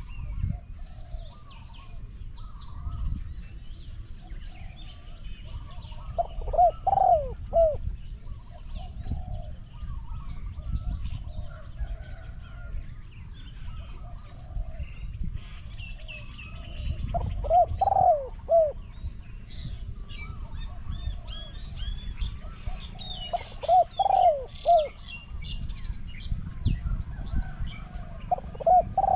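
Spotted dove cooing: a phrase of three or four low coos, repeated four times about six to ten seconds apart. Small birds chirp and twitter throughout.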